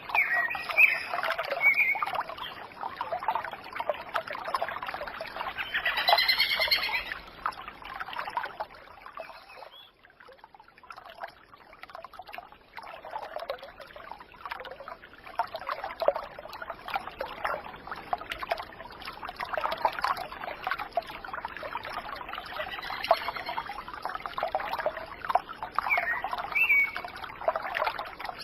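Birds chirping and calling, many short overlapping chirps and whistled notes, with a quieter lull about ten seconds in.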